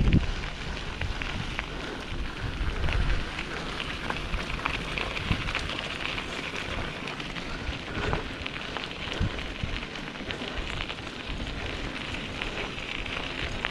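Mountain bike rolling over a loose, stony trail: a steady gravelly crackle from the tyres with many small clicks and knocks, over a low rumble of wind on the action-camera microphone.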